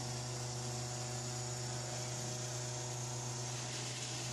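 Machinery running with a steady low hum and a ladder of even overtones above it.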